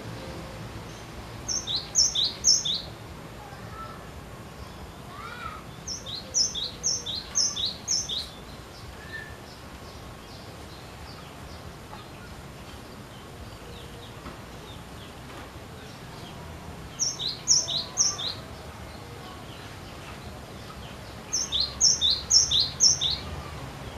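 Cinereous tit (glatik batu) singing: four short phrases spaced several seconds apart, each three to five quick repeats of a high two-note whistle.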